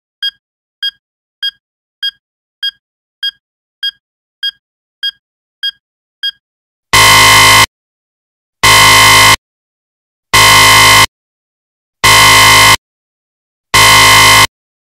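Alarm sounds from a phone posing as a radiation detector: eleven short, ringing electronic beeps, a little under two a second, then five long, much louder harsh buzzer blasts, each just under a second with short gaps between.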